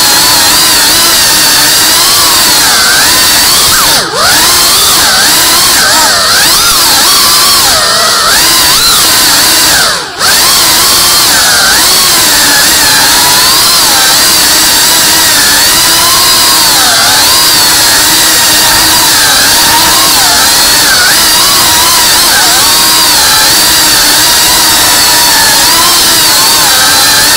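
FPV quadcopter's motors and propellers whining loudly, the pitch rising and falling constantly as the throttle changes. The sound drops out briefly twice, about four and ten seconds in, as the throttle is cut.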